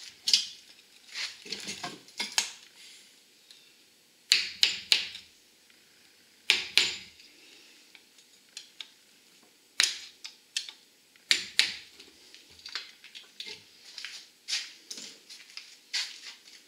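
Steel screwdriver clinking and tapping against the C-clips and bearing caps of a newly fitted axle-shaft U-joint, seating the clips in their grooves. The joint's metal yokes clink as it is worked; irregular sharp metal clicks with short ringing, a cluster of them about four seconds in.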